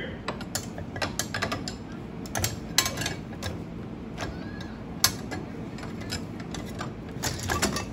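Irregular metal clicks, clinks and scrapes as a fired SawStop aluminum brake cartridge and the saw blade it jammed are pried with a wrench and worked off the table saw's arbor.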